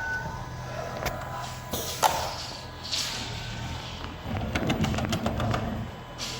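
Richpeace automatic sewing machine at work: a steady hum broken by sharp clicks and short hisses, with a rapid run of ticking from about four to five and a half seconds in.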